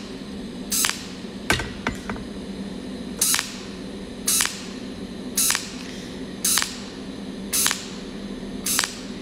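Cold welding machine firing spot welds along a seam: a short, sharp hissing arc pulse about once a second, each spot laid over the tail of the last, over a steady low hum.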